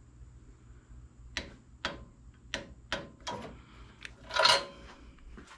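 Ratchet wrench clicking in a handful of separate ticks, then a louder, longer metallic clatter about four and a half seconds in, as spark plugs are tightened.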